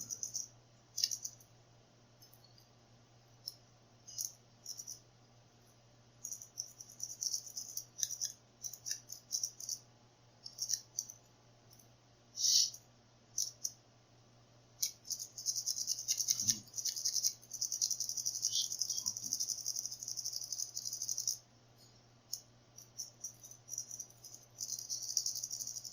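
Medusa rake pick scrubbing in and out of a Word Lock 40mm padlock's pin tumblers under light tension: quick metallic rattling and scraping of the pins in spells with short pauses, the longest stretch a little past halfway. A faint steady low hum runs underneath.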